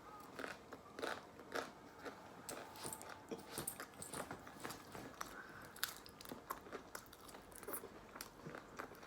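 Close-up mouth sounds of a person chewing pizza, with many small irregular clicks and lip smacks.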